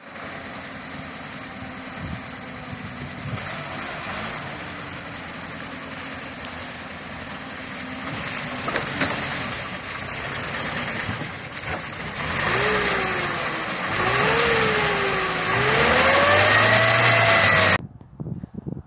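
Robur LO 2002A truck's air-cooled four-cylinder petrol engine running as it crawls off-road, then revving up and down several times, growing louder as it labours through a shallow ditch in a gear too high, getting lightly stuck. The sound cuts off suddenly near the end.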